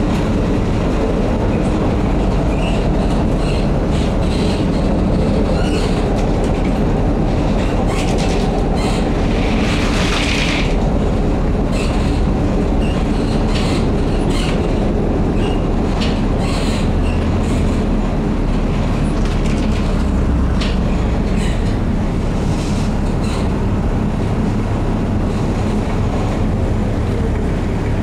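Running noise inside a Brussels STIB PCC tram on the move: a steady rumble from the wheels and running gear, with frequent clicks and knocks from the rails. A brief hissing burst comes about ten seconds in.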